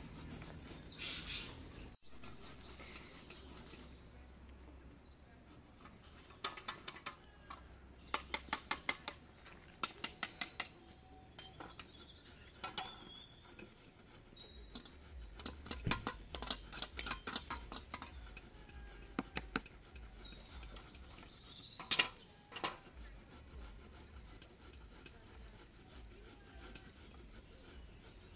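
Carrots being grated by hand on metal graters: runs of quick scraping strokes, several a second, with pauses between the runs.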